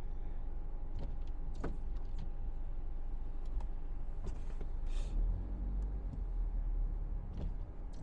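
Car cabin noise while creeping in slow traffic on a wet, slushy road: a steady low engine and tyre rumble with a thin steady hum and a few light clicks. A windshield wiper sweeps the glass, and a brief hissing swish comes about five seconds in.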